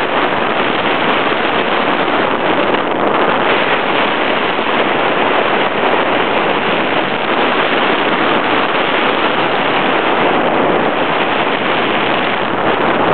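Loud, steady rush of wind over the microphone of a hang glider in flight, driven by its airspeed.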